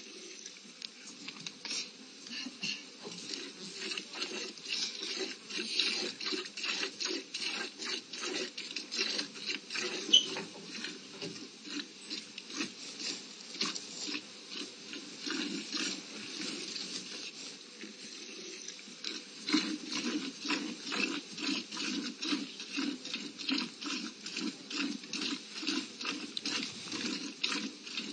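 A cat chewing a small raw fish: a quick, fairly even run of wet chewing clicks, a few a second, with one sharper click about ten seconds in.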